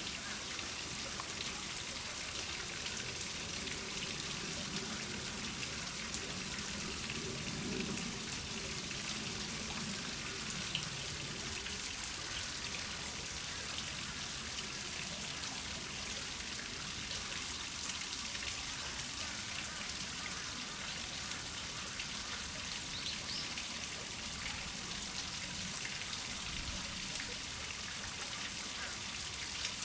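Steady rain-like hiss throughout, with a faint low murmur in roughly the first twelve seconds.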